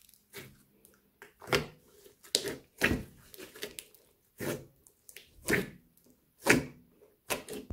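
A large mass of mixed slime kneaded and squeezed by hand, giving sharp pops and clicks as air pockets burst out of it, about one a second.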